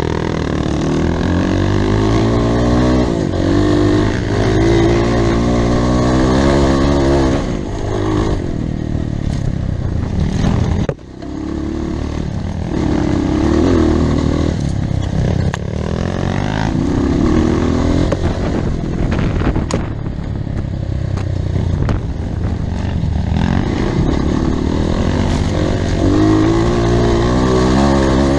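Off-road motorcycle engine running on a trail, its pitch rising and falling repeatedly as the throttle is worked, with a sudden short dip about eleven seconds in.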